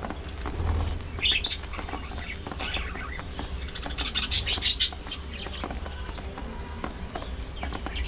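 Budgerigars chirping, with a louder run of quick chirps about halfway through, over small clicks from beaks picking at loose seed.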